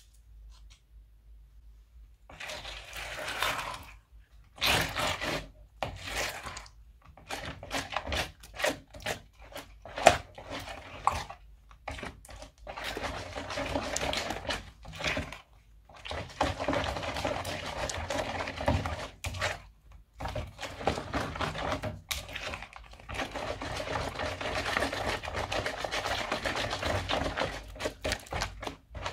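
A spatula stirring and folding thick slime with small beads mixed in, in a plastic bowl. It comes in short bursts at first and then runs almost without a break; the first two seconds are nearly silent.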